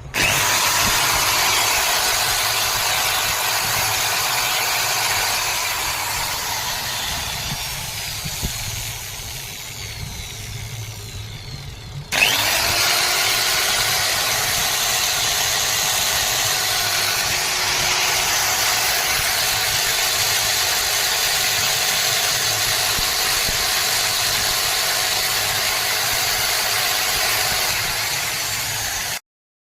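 Electric grinder motor with a sparking armature, switched on and spinning up to a steady whine. It sags somewhat, then starts again sharply about twelve seconds in with a rising pitch, and runs steadily until it cuts off abruptly near the end.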